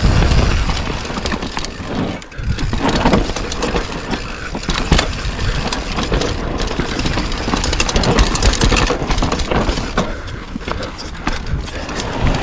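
Orange Stage 6 mountain bike riding downhill on a dirt trail: wind rushing over the microphone and tyres rolling over rough ground, with many sharp clicks and rattles from the bike.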